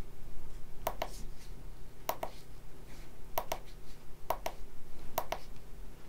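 Small tactile push button on a breadboard clicked five times, each a quick pair of clicks, about once a second, toggling a triac-switched bulb on and off.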